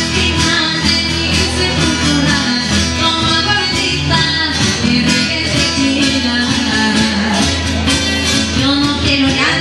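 Two acoustic guitars strummed in a live song, with a girl singing over them.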